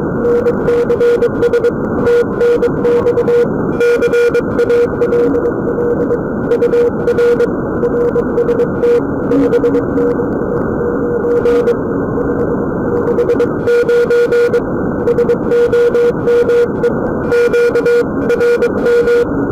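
Morse code (CW) on the 20-metre amateur band, received through an RTL-SDR dongle with an upconverter: a steady mid-pitched beep keyed on and off in dots and dashes over a constant hiss of band noise.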